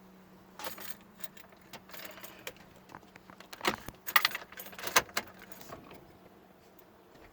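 Keys jangling and clinking in irregular bursts, busiest a little past the middle.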